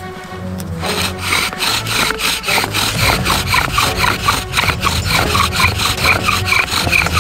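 Bow drill working: a wooden spindle twisting back and forth in a fireboard, driven by a paracord bow, with rapid, even squeaky friction strokes. It starts about a second in and gets louder a few seconds later as the drilling speeds up to make smoke.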